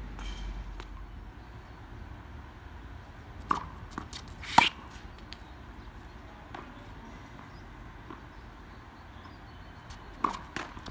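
Tennis ball hits in a rally: a sharp pop of a racket striking the ball close by about four and a half seconds in, after a fainter knock a second earlier, and another pair of pops near the end. Faint wind rumble at the start.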